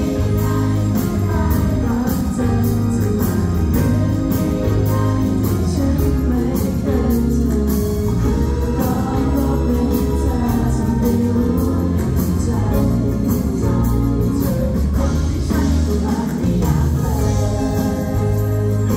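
Live pop song through a concert PA: a male singer singing into a handheld microphone over backing music with a steady bass beat.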